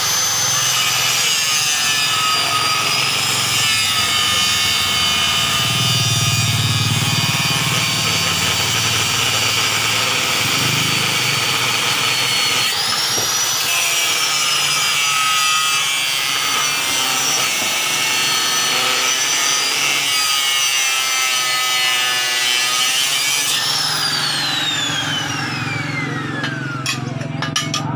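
Electric power tool running under load, its motor whine rising as it spins up, with a steady grinding, rubbing noise as it works. The whine rises again about halfway through, then falls away in a long downward glide as the motor winds down near the end.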